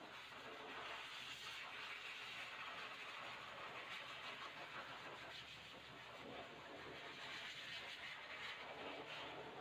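Small electric motor of a dog-grooming tool running steadily and faintly.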